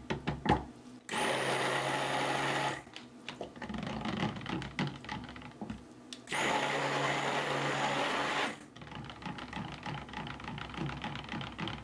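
Electric stick blender running in a pitcher of cold process soap oils and lye water, in two short pulses of about one and a half and two seconds, with small knocks in between.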